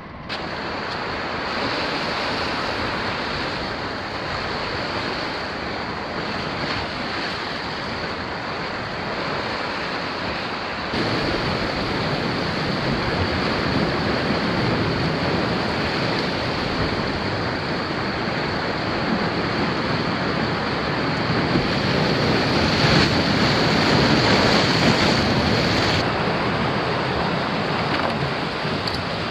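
Sea waves washing on a rocky shore, with wind: a steady rushing noise that grows louder partway through.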